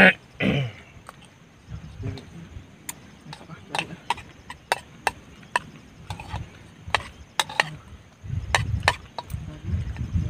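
Spoon clicking against a bowl as someone eats, in irregular sharp clicks, sometimes two or three close together, after a brief loud burst at the start. A low rumble joins near the end.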